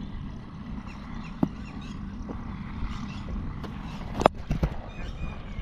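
Steady wind rumble on the camera microphone. A cricket ball is struck by the bat as a delivery is played: one sharp crack a little after four seconds in, then two softer knocks just after it. A fainter single knock comes about a second and a half in.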